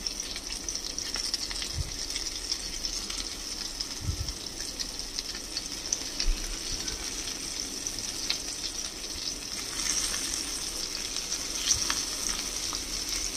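Chicken and green-pea shami kebab patties shallow-frying in a little oil in a nonstick pan, with a steady sizzle and occasional light ticks as they are turned over with a silicone spatula.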